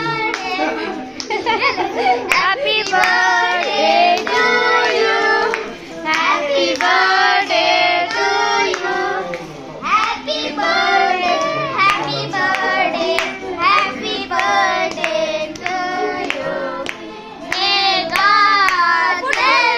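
A group of voices, a child's among them, singing a birthday song while hands clap along in rhythm.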